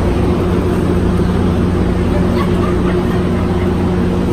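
Steady low machine drone with a constant hum, unchanging in level.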